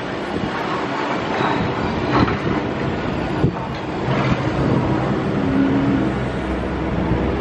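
City street noise with the rumble of a passing vehicle, a steady hum running through it and one sharp knock about halfway through.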